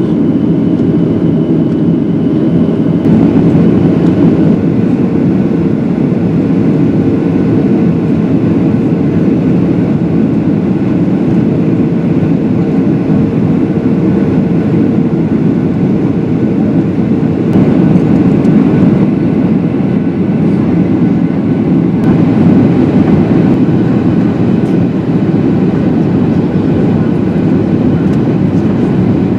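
Steady cabin noise inside a Boeing 737-800 as it descends: the dull rush of airflow and its CFM56 engines, with a thin steady hum under it that fades out about halfway through.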